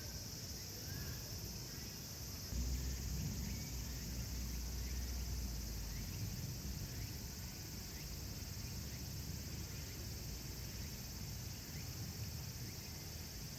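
Insects trilling steadily at a high pitch, with short faint chirps repeating about once a second. A low rumble comes in about two and a half seconds in and lasts a few seconds.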